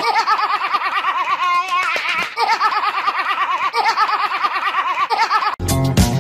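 A young girl and a man laughing hard together, her high-pitched laughter in rapid wavering peals. Near the end it cuts off and funky music with a beat starts.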